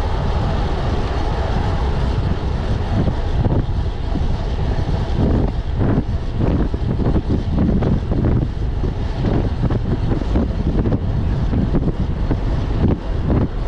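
Loud wind buffeting the microphone of a camera carried on a road bike ridden fast, a dense low rumble that gusts unevenly.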